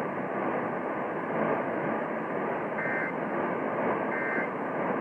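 Emergency Alert System end-of-message (EOM) signal: two short buzzing digital SAME data bursts a little under a second and a half apart, marking the end of the alert, over steady AM radio hiss.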